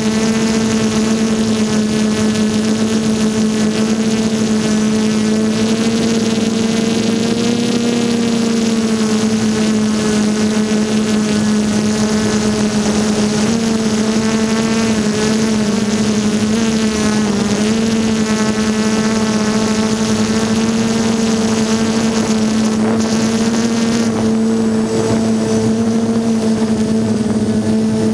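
DJI F330 quadcopter's brushless motors and propellers whining steadily, heard from on board, the pitch wavering slightly now and then.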